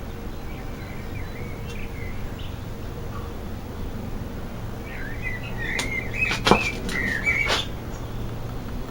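Birds chirping in short wavering calls, busiest past the middle, with a handful of sharp clicks and knocks about six to seven and a half seconds in, the loudest near six and a half seconds, over a steady low hum.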